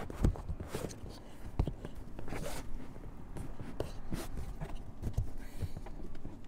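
Hands pressing and rubbing an adhesive-backed plastic light mount onto an inflatable dinghy's tube: irregular scuffing and rubbing with scattered light knocks.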